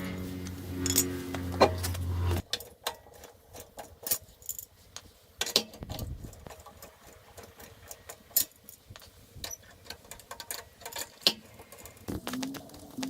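Scattered, irregular metallic clicks and clinks of tools and wheel hardware being handled during a tyre change. A steady low hum cuts off about two seconds in.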